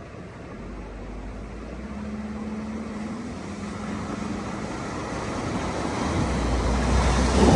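A vehicle's engine running as it draws nearer, growing steadily louder, with a rushing noise building in the last couple of seconds.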